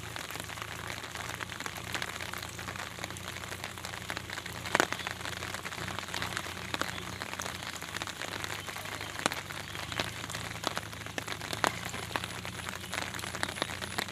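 Steady rain with a dense patter of separate drops, and one sharper tap a little under five seconds in.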